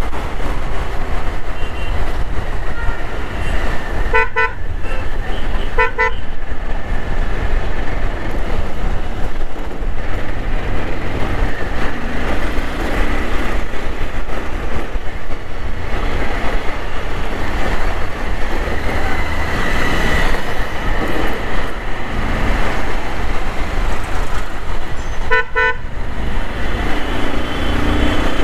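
Riding a motorcycle in slow road traffic: a steady rumble of engine, road and wind noise, broken by short vehicle-horn beeps, two of them about a second and a half apart some four seconds in, and one more near the end.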